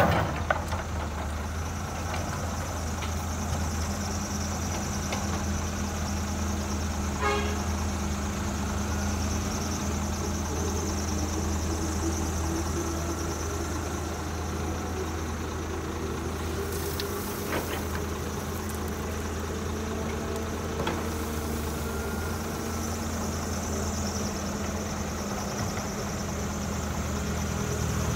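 Diesel engine of a CAT hydraulic excavator running steadily while it loads rock into a dump truck, with a drawn-out hydraulic whine through the second half and a few sharp knocks of rock and steel.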